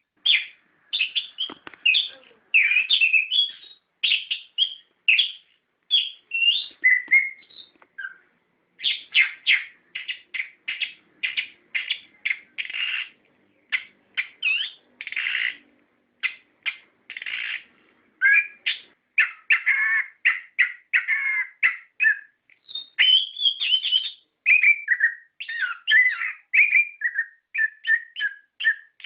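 Orange-headed thrush singing a long, unbroken song of quick, varied whistled phrases and trills with hardly a pause.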